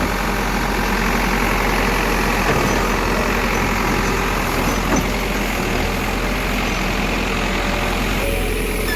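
Diesel engine of a heavy earthmoving machine running steadily, with a constant low hum under it. Its sound thins a little near the end.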